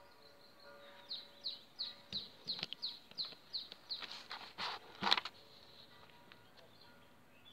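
A songbird singing a run of short, high, falling notes, about three a second, for two to three seconds. A few brief rustling noises follow about four to five seconds in.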